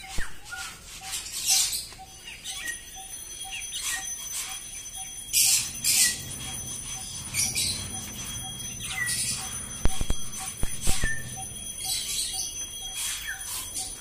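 Small birds chirping in short, high calls scattered irregularly, over a faint steady ticking. A few sharp knocks come about ten and eleven seconds in.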